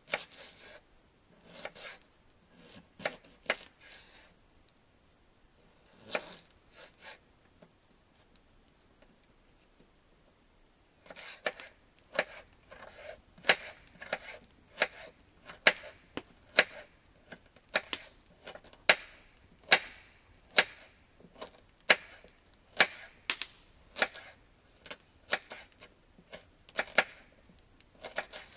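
Knife chopping raw duck on a wooden cutting board: sharp knocks, a few scattered ones at first, then a steady run of about one and a half a second from about a third of the way in.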